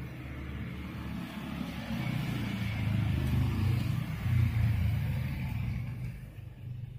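A motor vehicle's engine running, swelling louder for a few seconds and then fading away.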